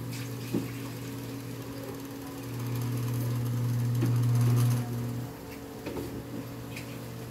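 A steady low mechanical hum, like a small motor running, that swells about two and a half seconds in and drops back about five seconds in, with a few faint ticks.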